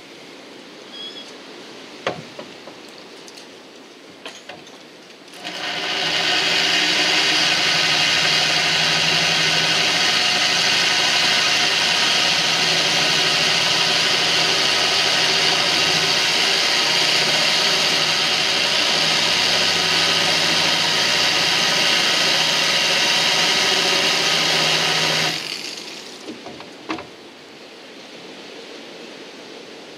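Corded DeWalt electric drill running steadily at one speed under light pressure, cutting a hole through the glass wall of an aquarium sump with a glass bit. It starts about five seconds in and stops after about twenty seconds, with a few light handling clicks before it.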